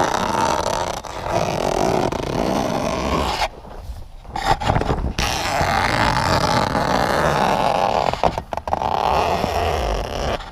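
Fabric shelter canopy scraping and rustling as it is dragged over the building's metal hoops, in long pulls broken by two short pauses.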